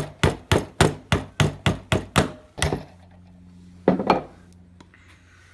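Hammer tapping a pin punch to drive the trigger pin out of a Bostitch pneumatic roofing nailer. There is a quick run of about a dozen sharp strikes, around four a second, that stops a little before halfway, then one more strike about a second later.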